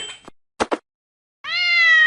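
A cat meowing: a short sound at the start, two quick clicks, then one long drawn-out meow beginning about one and a half seconds in.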